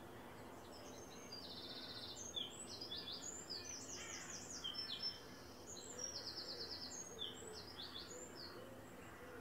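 A songbird singing two phrases of high, varied whistled notes, each opening with a fast trill. The second phrase starts about five seconds after the first.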